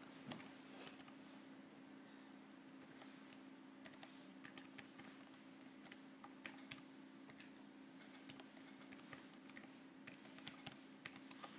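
Faint typing on a computer keyboard: irregular light key clicks, more of them in the second half, over a low steady hum.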